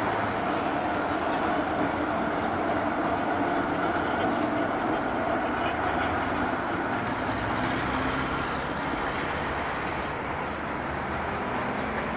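Basel street trams running past on street track: a steady rumble of wheels on rail.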